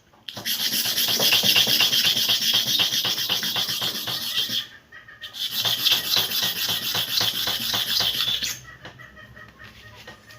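Hair clipper blade scraped rapidly to and fro against a sharpening surface in two spells of grinding strokes with a short pause between, as the blade is sharpened side by side.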